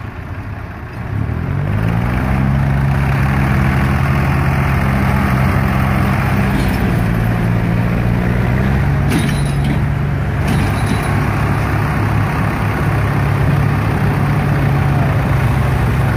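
Swaraj tractors' diesel engines revving up about a second in and then held at high revs under heavy load, straining to pull a tractor and loaded trolley with its rear wheels stuck in mud.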